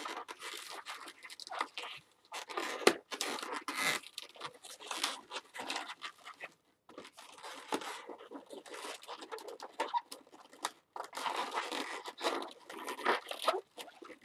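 Latex twisting balloons being twisted and handled, giving irregular rubbery squeaks and rubbing that stop briefly twice.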